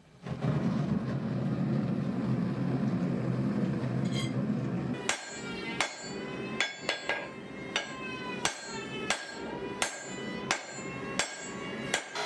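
A steady low rushing noise, then, about five seconds in, a hand hammer striking hot axe steel on an anvil: about a dozen ringing blows, a little under two a second.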